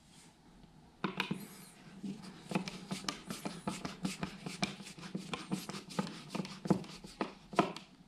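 Screwdriver turning a white cover-plate screw into a plastic outlet wall plate: a run of irregular small clicks and scrapes. It starts about a second in and stops shortly before the end.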